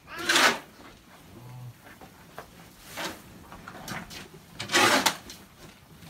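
Shovels scooping and scraping cattle feed along the barn floor: two louder scrapes, one just after the start and one about five seconds in, with a few lighter scrapes between.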